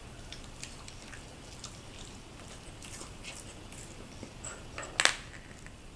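Wooden dog treat-puzzle being worked by a puppy's nose and mouth: faint scattered clicks and taps of wooden pegs against the board, with one sharper wooden knock about five seconds in.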